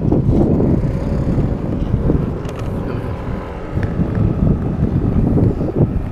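Wind buffeting the microphone: a loud, low rumble that rises and falls unevenly.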